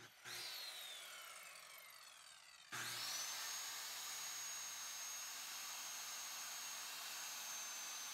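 Cordless circular saw cutting a pressure-treated board: a falling whine as the blade winds down, then the saw starts again about three seconds in and runs with a steady high whine.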